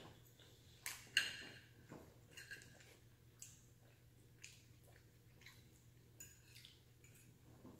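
Quiet eating sounds: chewing and mouth smacks on fettuccine Alfredo, with light clicks of a metal fork against a plate, the sharpest about a second in.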